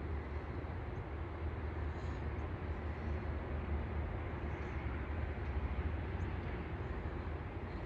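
Steady outdoor background noise with a fluctuating low rumble and a few faint high chirps.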